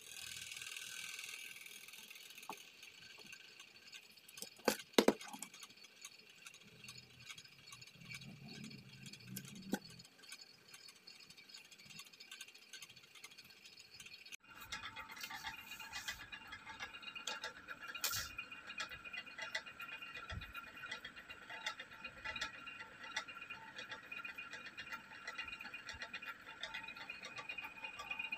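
Handling sounds of a wooden base and a velvet-covered cardboard display stand being fitted together: two sharp knocks about five seconds in and a few lighter taps, then light rattling and ticking through the second half.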